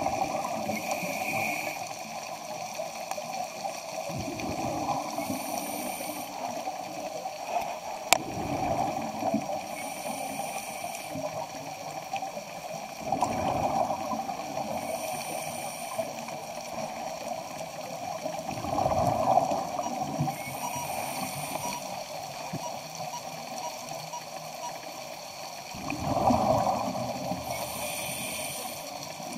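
Underwater sound of a scuba diver breathing through a regulator: exhaled bubbles gurgle in about six swells, each a second or two long, spaced four to seven seconds apart, over a steady low background.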